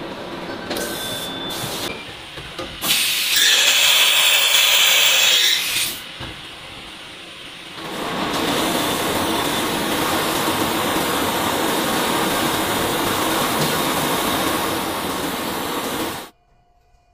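Machine-shop noise from CNC machining of steel, in several separate cuts: a loud hiss about three to six seconds in, then steady machining noise from about eight seconds that cuts off suddenly near the end.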